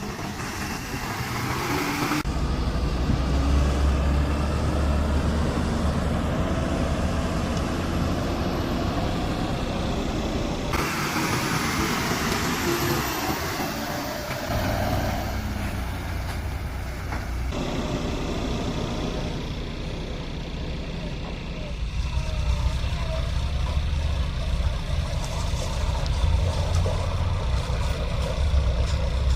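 Excavator's diesel engine running with a steady deep rumble. The sound changes abruptly several times, as if cut between separate clips.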